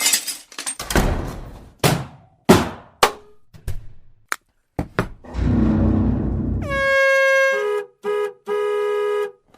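A string of sharp bangs, then a low rumble, then a vehicle horn: one long blast that drops in pitch as it starts, followed by three short honks.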